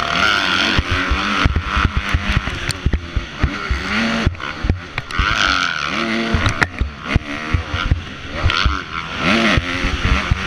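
Motocross bike engine revving hard, its pitch climbing and dropping several times as it is run up and shifted through the gears. Heavy wind rumble and knocks sound on the helmet-mounted microphone.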